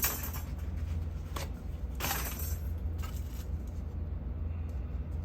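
A few light scrapes and clinks of small metal tools working on a circuit board, over a steady low hum.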